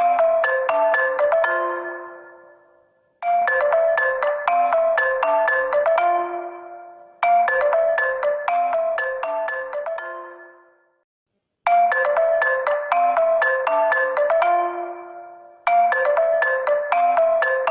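HONOR phone ringtone: a short, quick melody of struck notes ending on a held lower note, repeating about every four seconds and dying away before each restart.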